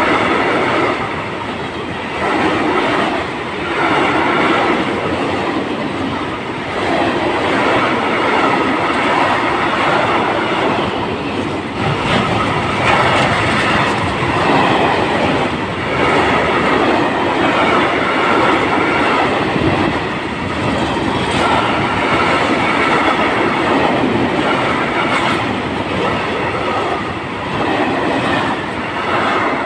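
Freight wagons of a long train of high-sided open cars rolling past at close range, their wheels clattering over rail joints in a repeating, uneven rhythm. A high ringing squeal from the wheels comes and goes.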